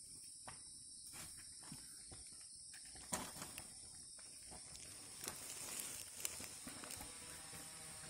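Faint, steady, high-pitched drone of forest insects, with scattered light scrapes and knocks from a man shinning up a bare tree trunk by hand. The sharpest knocks come about three seconds in and again near six seconds.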